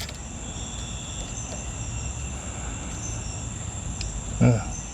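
Crickets trilling steadily in a high, unbroken tone over a low steady rumble, with a single sharp click at the start.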